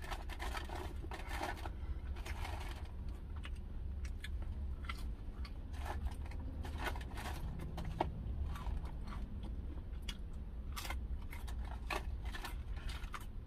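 Close-up eating sounds: chewing and lip-smacking on sauced smoked chicken wings, with irregular clicks and crackles as the wing is pulled apart over crinkling foil, over a low steady hum.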